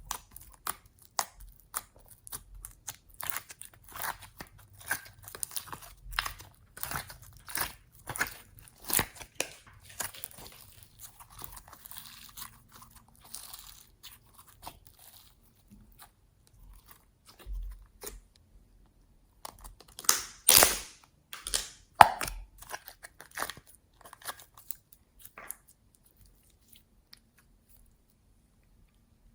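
Glossy slime being worked and mixed by hand, giving irregular sticky clicks, crackles and pops. They are busiest about twenty seconds in and die away near the end.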